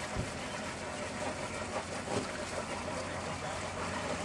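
Steady rushing of the Fraser River running high and fast near flood level, with a brief low thump near the start.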